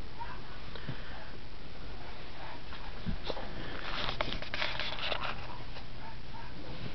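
Dachshund puppies sniffing and snuffling close to the microphone, with a louder burst of snuffling and rustling that starts about four seconds in and lasts just over a second.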